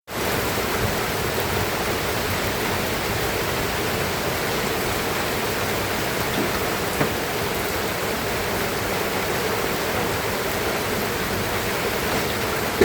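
Steady rain falling as an even hiss, with a sharp single tap about seven seconds in and another near the end.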